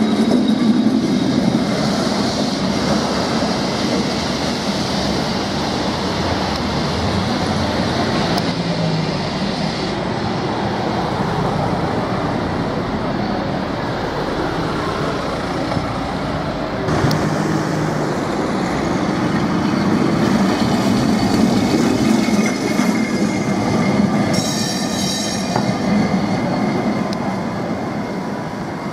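Lisbon's vintage yellow Carris electric trams running along street rails: steady rumble and clatter of the wheels on the track, mixed with street traffic.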